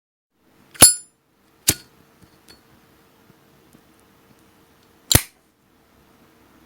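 Zippo lighter lid clicking open and shut: three sharp metallic clicks, the first with a brief ringing clink, the next close behind it, and the last about five seconds in.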